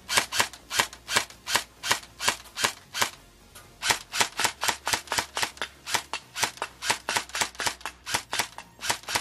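Lancer Tactical M4 airsoft electric gun (AEG) with a full metal gearbox firing on semi-automatic, single shots in quick succession at about two to three a second, with a short pause about three seconds in.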